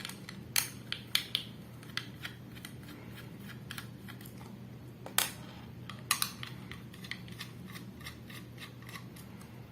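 Small screwdriver unscrewing the screws from a laptop hard drive's metal mounting bracket: scattered light metallic clicks and ticks, with a sharper click about five seconds in, over a faint steady hum.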